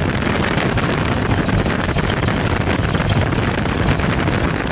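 Cessna 175's Continental GO-300 geared six-cylinder engine and propeller running steadily, heard loud from inside the cabin.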